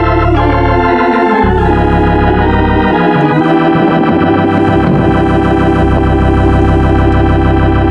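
Organ music, loud: sustained chords over a bass line that changes every second or so. It is played for the class winner's victory pass.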